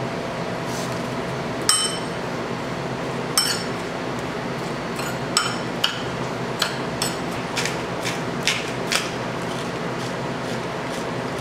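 Dishes and kitchen utensils clinking and knocking, about ten sharp strikes, some ringing briefly like glass, over a steady hum.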